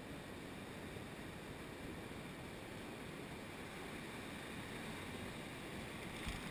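Surf washing over a rocky shoreline with wind buffeting the microphone: a steady wash of noise.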